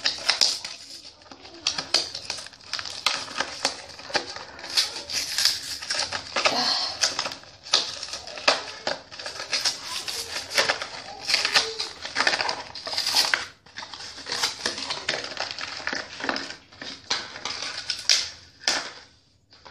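Stiff plastic blister packaging and cardboard backing of a boxed toy pony crackling and crinkling in a dense run of quick clicks as it is opened by hand, with a short pause about two-thirds through.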